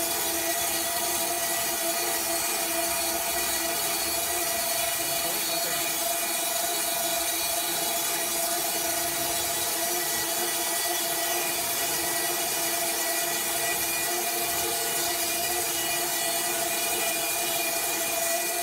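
Sawmill blade cutting steadily through a large log, the machine running at an even, unchanging pitch.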